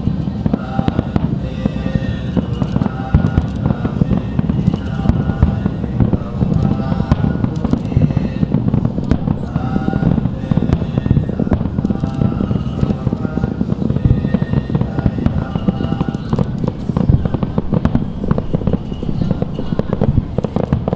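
Fireworks display going off continuously: a dense run of rapid bangs and crackles over a low rumble, with music playing underneath.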